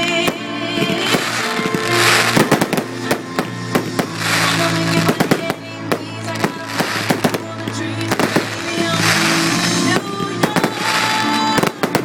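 Fireworks going off in quick bangs and crackles, in clusters about two to five seconds in and again near the end, over loud music.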